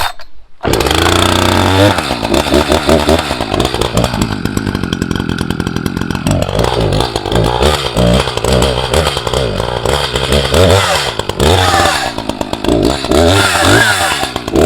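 Echo CS590 59cc two-stroke chainsaw running loud, revving up and down. It is held at high speed for about two seconds a few seconds in.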